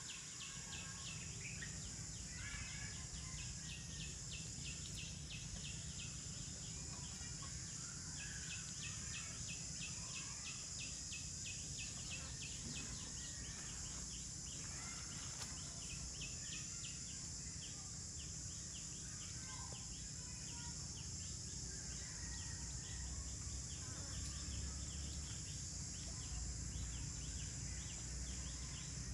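Outdoor tropical ambience: a steady high insect buzz with a fast pulsing chirp, scattered short bird chirps, and a low rumble underneath.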